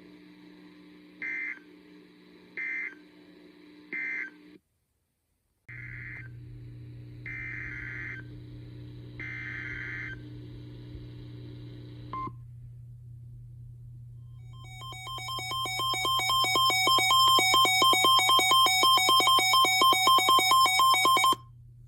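Emergency Alert System data tones: three short warbling bursts (the SAME end-of-message for one alert), a brief dropout, then three longer bursts (the SAME header of the next alert), over a low steady hum. The loudest part follows: a rapidly pulsing electronic alert tone near 1 kHz, lasting about seven seconds.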